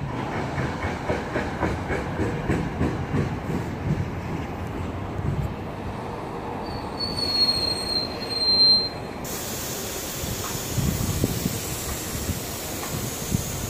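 NJ Transit commuter train rolling along the platform track: steady rumble with wheels clicking over rail joints, and a brief high wheel squeal about seven seconds in.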